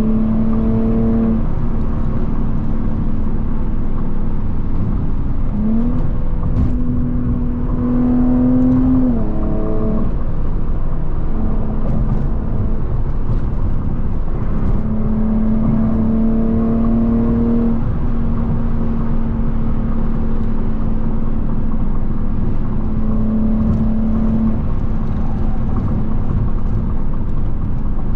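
Car engine drone and road rumble while driving at highway speed. The engine note steps up and down several times as the throttle changes.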